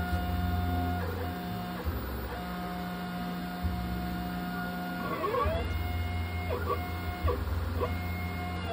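Stepper motors of a Shark CNC machine driving the router carriage: whining tones that start, stop and change pitch every second or so, with quick rising and falling glides as the axes speed up and slow down, over a low pulsing hum.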